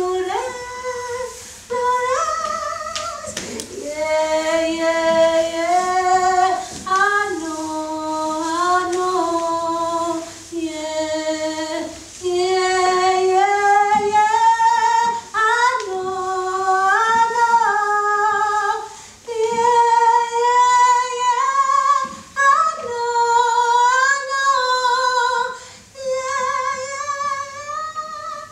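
A woman's voice singing a slow melody of long held notes with vibrato, in phrases of a few seconds broken by short pauses.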